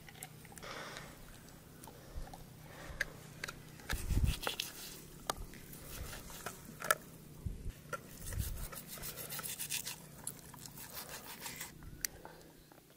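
Rasping, scraping sounds with sharp clicks: a dog gnawing a bone, and a knife cutting raw lamb meat on a tray.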